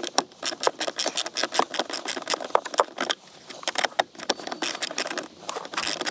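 Hand ratchet clicking in quick, uneven runs as an 8mm bolt holding a blower motor is turned out by hand, with a short pause about four seconds in.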